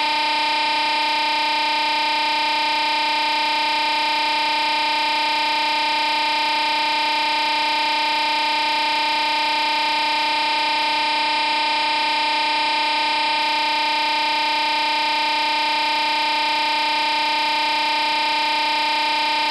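A continuous, unchanging electronic buzz: one steady distorted tone with many overtones, strongest in the upper middle, with no beat and no variation.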